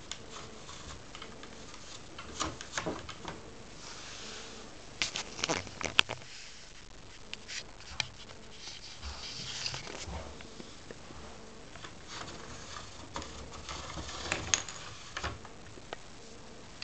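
Light wooden clicks, taps and scraping as a handmade wooden model forklift is handled and moved across a tiled floor, with a sharp click about six seconds in.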